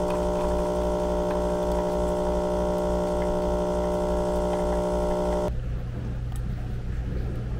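Espresso machine pump humming as it pulls a shot, a steady buzz with a low pulsing throb, then cutting off sharply about five and a half seconds in. A lower, quieter hum continues afterwards.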